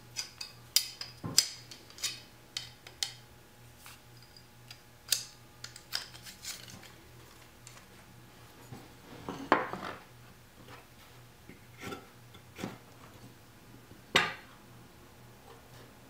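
A metal square and pencil being handled on a pine strip and a table saw top while lines are scribed. Scattered light clicks and taps, many in the first few seconds, with a louder scrape about halfway through and a sharp knock near the end.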